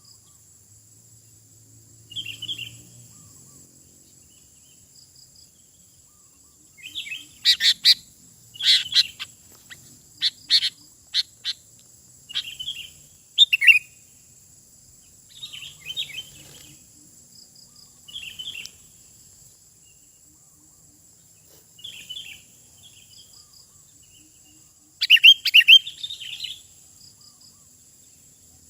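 Sooty-headed bulbul singing: short, bubbly chirping phrases every couple of seconds, with louder runs of quick notes about a third of the way in and again near the end.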